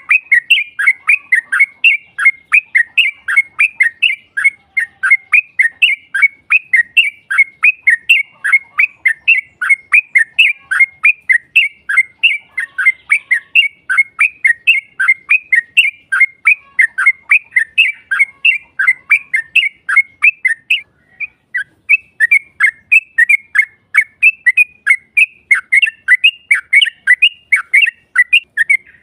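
Yellow-vented bulbul (trucukan) giving a long, rapid 'ropel' series of short, sharp, falling notes, about four a second, with one short pause about 21 seconds in. It is a lure call meant to provoke rival birds into answering.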